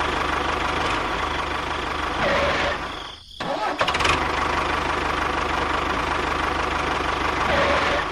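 Tractor engine running steadily with a fast, even pulse, cutting out briefly about three seconds in and then running again.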